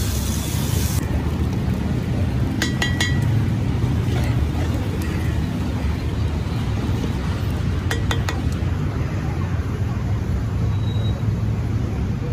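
Water hissing on the hot dosa griddle, cutting off suddenly about a second in, over a steady low rumble. Two short bursts of clinks come around three and eight seconds in.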